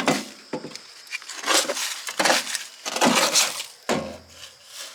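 Tools and loose junk clattering and scraping as they are rummaged through in a storage compartment, opening with a sharp knock, then several rattling bursts.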